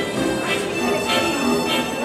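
A harmonica ensemble playing a piece together, several parts in harmony with held notes.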